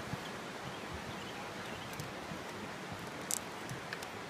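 Footsteps of several people crossing a wooden-planked suspension footbridge, a few faint knocks and clicks over a steady rushing noise.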